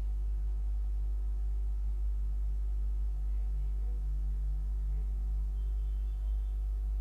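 Steady low electrical mains hum on the recording, with no other sound standing out.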